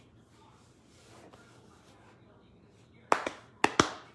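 Faint room tone, then four sharp knocks in quick succession about three seconds in.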